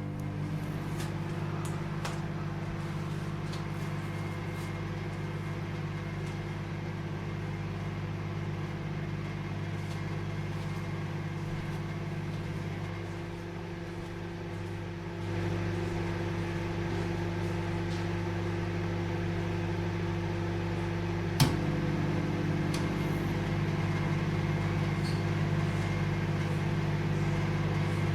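Microwave oven running with a steady electrical hum, a little louder about halfway through, and one sharp click about three-quarters of the way in.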